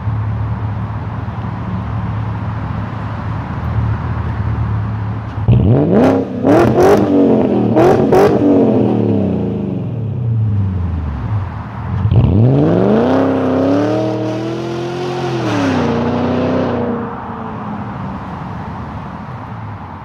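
BMW E39 540i's 4.4-litre V8 through a straight-piped exhaust, idling steadily, then revved hard from about five seconds in, with several sharp cracks as the revs rise and fall. About twelve seconds in it is revved again and held high while the car accelerates off, the note falling and fading near the end as it pulls away.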